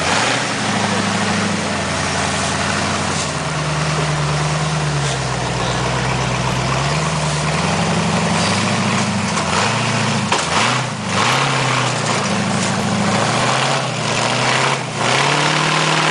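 Rock bouncer buggy's engine working at low speed as the buggy crawls up a rock ledge. Its note rises and falls as the throttle is fed in and eased off.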